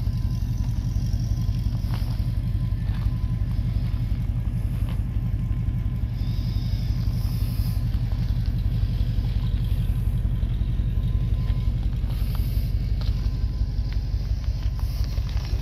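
Holden Commodore VT SS's V8 engine idling, a steady low rumble with a fast, even pulse.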